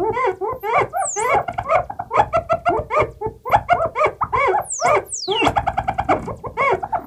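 Self-generating analog synthesizer patch: a Moog MF-107 FreqBox oscillator through an MF-101 lowpass filter and MF-104M analog delay, modulated by a CP-251 control processor, making quick animal-like chirps several times a second. High falling whistles come now and then, and a fast stuttering run of repeated notes comes about three-quarters of the way in.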